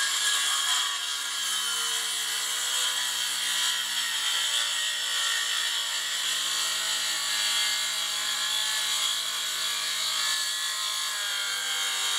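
Handheld circular saw running steadily at full speed as its blade rips lengthwise through a small log, a continuous high motor whine with the sound of the blade cutting wood.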